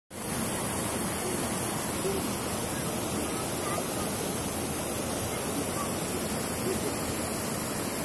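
Steady rushing of a waterfall and of water running over the rocks below it.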